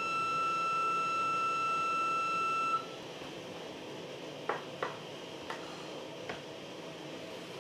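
A single organ pipe sounding one steady high note, which cuts off about three seconds in. A few light clicks follow.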